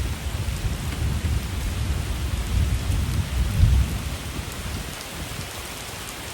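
Thunder rumbling over steady heavy rain. The deep rumble swells to its loudest a little past halfway, then fades, leaving the rain.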